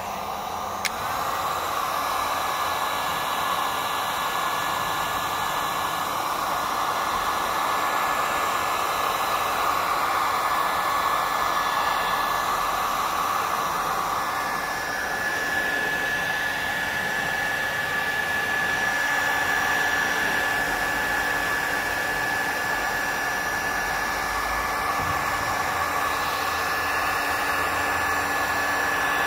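Electric heat gun running steadily, its fan blowing hot air onto black plastic bumper trim to melt-glaze the faded surface back to a shine. A thin high whine rides over the rushing air and grows stronger about halfway through.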